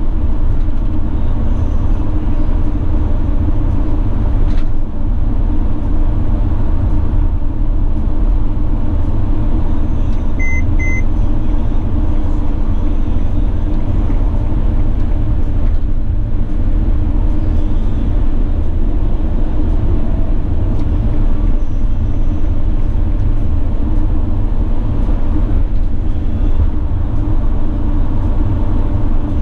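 Steady in-cab drone of a Mercedes-Benz Sprinter 519 CDI minibus cruising at motorway speed: V6 diesel engine and tyre and road noise with a heavy low rumble. Two short electronic beeps sound about ten seconds in.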